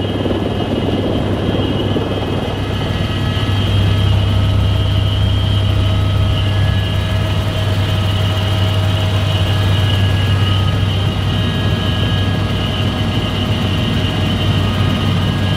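Helicopter in flight heard from inside the cabin: a loud, steady low drone from the rotors and engine, with several steady higher whines over it.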